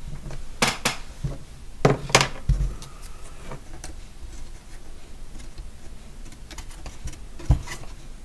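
Sharp clicks and taps of a small hand tool and a thin cedar planking strip against a wooden model ship's hull, in two quick clusters in the first two seconds with a low thump just after, then quiet handling and one more click near the end as the strip is pressed in place by hand.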